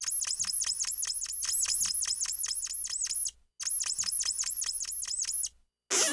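Cartoon sound effect: a rapid run of short squeaky ticks, about eight a second, that breaks off briefly midway and then resumes, followed by one short burst near the end.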